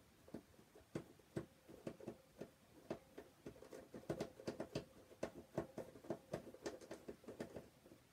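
Small screwdriver turning a screw in a plastic toy's battery holder: an irregular run of small sharp clicks, a few a second and busiest in the middle.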